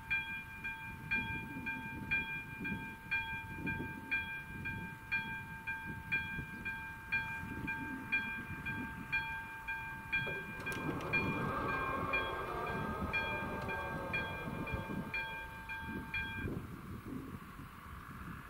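AŽD level-crossing warning bell ringing, about one stroke a second. About ten seconds in, the barrier drives start with a whine as the booms lower. The bell falls silent a little later, once the barriers are down.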